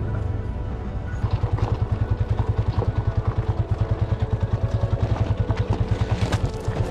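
Motorcycle engine running, with an even, fast low thumping of about ten beats a second from about a second in until near the end.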